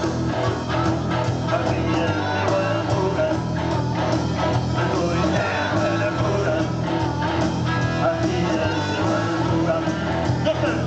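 Blues-rock band playing a boogie: electric guitar and bass over drums, in a stretch between sung lines.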